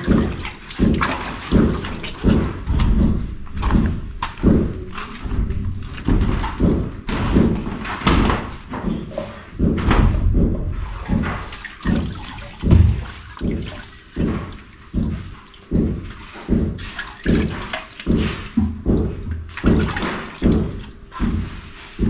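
Hand-washing: water splashing in repeated short strokes, about two a second, mixed with thumps.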